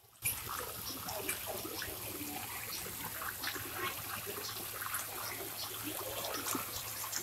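A crowd of feeding carp churning and slurping at the water surface, a dense run of small splashes and smacks that begins abruptly just after the start.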